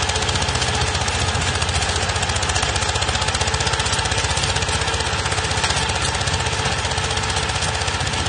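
Small 20 hp tractor engine running steadily under load with a rapid, even pulsing beat, driving a rotary tiller through the soil.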